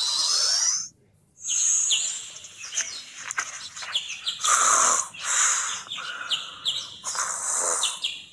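A high whistle cuts off about a second in; then birds chirp in many short, repeated calls.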